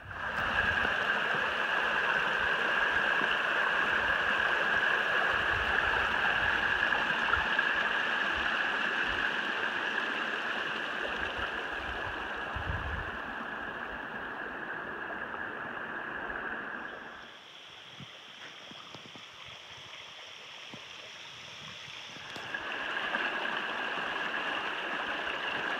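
Creek water rushing over rocks in a steady wash; it grows quieter about two-thirds of the way through and comes back up a few seconds later.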